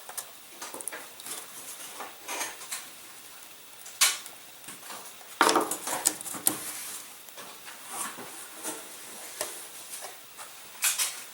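Scattered light clicks and taps of small parts being handled on a workbench, with a few sharper knocks about four, five and a half and six and a half seconds in.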